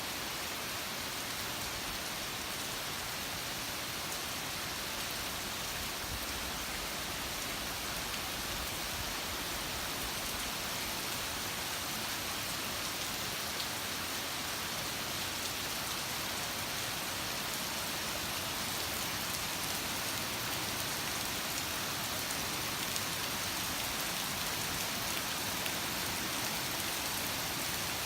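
Heavy typhoon rain pouring down in a steady, even hiss. It is falling onto a road that is flooded a few centimetres deep because the drains cannot keep up.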